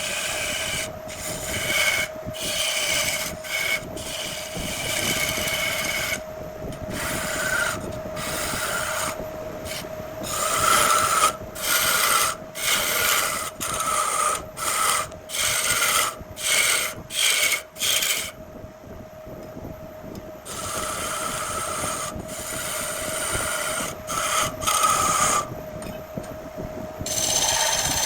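A turning tool scraping a spinning jackfruit-wood blank on a wood lathe, in repeated passes over the lathe's steady hum. In the middle stretch the strokes come about once a second, with short gaps between them.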